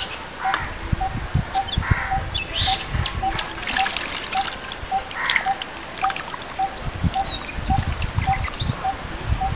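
Spiced curry liquid poured from a clay pot into an iron wok of fish frying in hot oil, trickling and splashing, with a short burst of hissing a little after the middle. A bird repeats a short call throughout, a little under three times a second.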